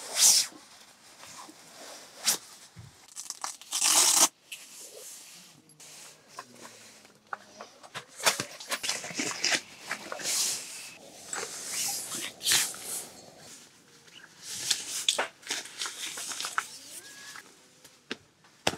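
Nylon camping fabric rustling and swishing as gear is pulled out of a strapped compression stuff sack and a sleeping mat is spread out on the tent floor. Two louder ripping swishes come right at the start and about four seconds in.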